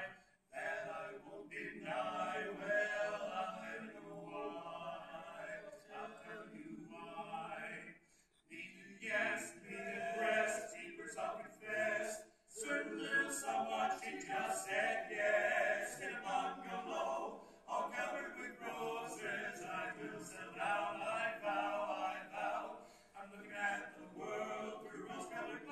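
Male vocal quartet singing a cappella, four voices together without instruments, with brief breaks between phrases about eight and about twelve seconds in.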